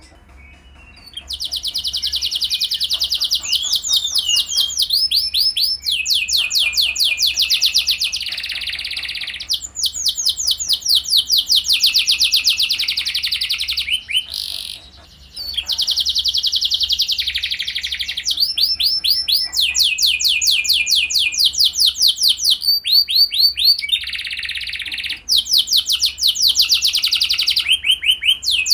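Domestic canary singing a long song of fast rolling trills and rattling phrases, one quick series after another with short breaks, the song pausing briefly about a second in and again about halfway. A faint steady low hum lies underneath.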